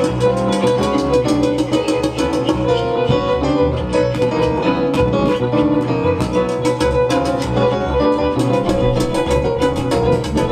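Live free-improvised ensemble music: a long-held steady note and shifting bowed-string and keyboard tones over a fast, irregular patter of sharp percussive clicks.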